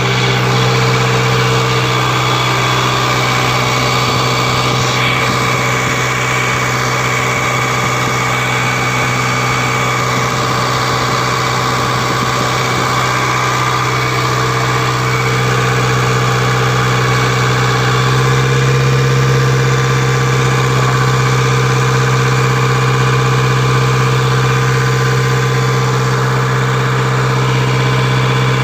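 Cummins 4BT four-cylinder turbo-diesel engine of a Dynapac vibratory roller running steadily at idle, picking up a little in speed about 18 seconds in.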